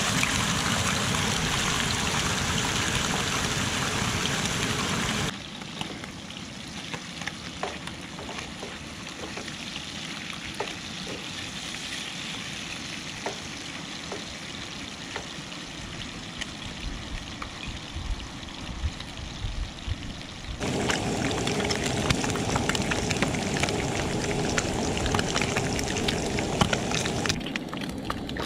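Ham slices and then sausages sizzling in a skillet on a propane camp stove: a steady frying hiss with many small crackles and pops. The level drops abruptly about five seconds in and rises again about twenty seconds in.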